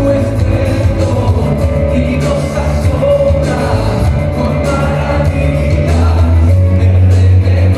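A live worship band with guitars and a choir perform a Spanish-language worship song in a large hall, singing over a full band with heavy bass. A long, steady low bass note comes in near the end.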